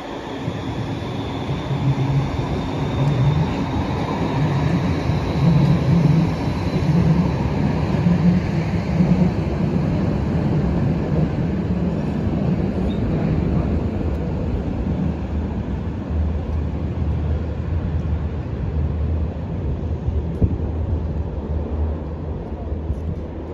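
Siemens Combino low-floor trams (Rheinbahn NF8U) running past on the track: rumble of wheels on rails and traction equipment. A faint high whine falls slowly over the first several seconds, and the sound eases off near the end.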